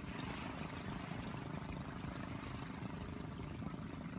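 Wind buffeting the phone's microphone in a steady low rumble, over the soft wash of small waves lapping at the shoreline.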